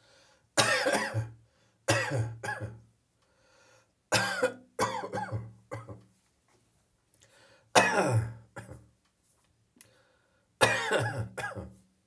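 A person coughing in six bouts, each a quick run of a few loud coughs, with short quiet gaps between them: a morning cough brought on by catarrh, phlegm in the airways.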